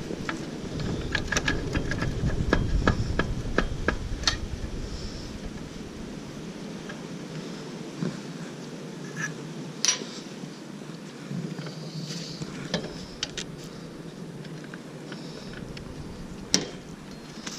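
Scattered clicks and clanks of a motorcycle's rear wheel parts and tools being handled, over a low rumble that dies away about a third of the way in. A sharp clack about halfway and another near the end are the loudest.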